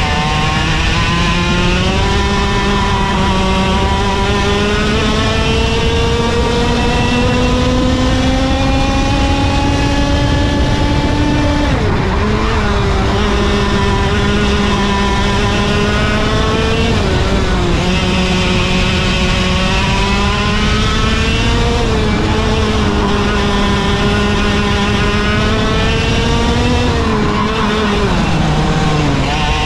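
IAME KA100 Junior kart engine, a 100cc air-cooled two-stroke single, running at race pace heard on board. Its pitch climbs steadily for about twelve seconds, drops sharply, then rises and dips several more times, falling again near the end, over steady wind noise.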